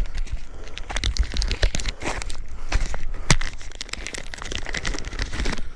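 A chocolate snack's wrapper being handled and crinkling, with irregular clicks and crackles, over a low rumble.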